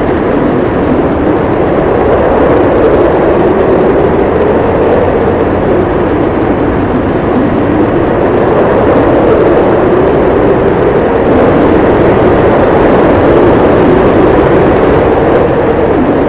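Strong wind howling steadily in a snowstorm, a low moaning rush that slowly swells and wavers in pitch, with no gusts breaking off.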